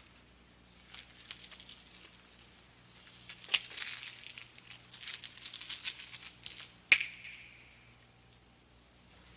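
Soft rustling and crinkling with scattered clicks, busiest in the middle stretch, where one sharp click stands out as the loudest sound.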